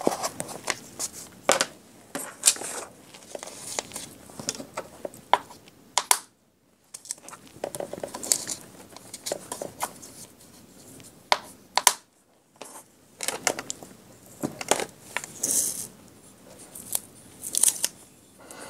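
Sheets of cardstock being lifted, shifted and laid down on a stamp-positioning tool: paper rustling and crinkling, with scattered sharp taps and clicks. The sound cuts out twice briefly.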